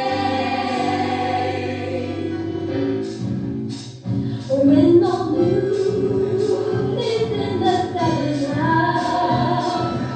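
Cast of a stage musical singing together with accompaniment. A chord is held for the first three seconds and the sound drops briefly about four seconds in. A melody then comes in over an even beat.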